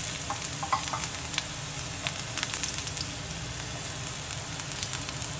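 Thin strips of aromatics sizzling in hot oil in a nonstick pan: a steady frying hiss with scattered crackling pops.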